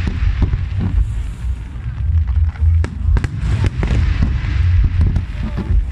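Fireworks display: many sharp bangs in quick succession over a continuous deep rumble of aerial shells going off.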